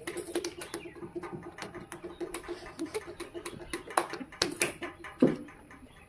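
Crinkling and crackling of chocolate-bar wrappers being handled, a quick run of sharp clicks, with a few louder snaps about four and five seconds in.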